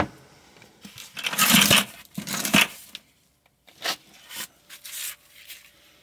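Rustling and scraping of gloved hands sifting through debris on a concrete shop floor: two loud bursts about a second and a half and two and a half seconds in, then a few short, faint clicks and rustles.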